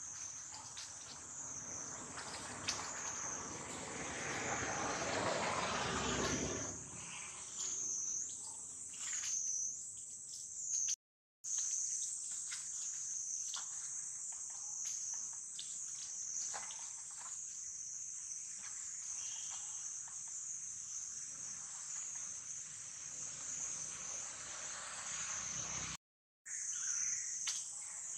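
Steady high-pitched insect chorus, a continuous buzz that wavers slightly, with a louder rustling noise swelling and fading between about two and seven seconds in. The sound cuts out briefly twice.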